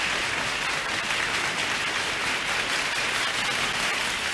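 Studio audience applauding, a steady even clatter of many hands.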